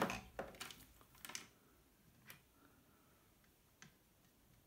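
Faint small plastic clicks and taps from handling a digital multimeter and its test probes: a quick cluster in the first second and a half, then a couple of isolated ticks.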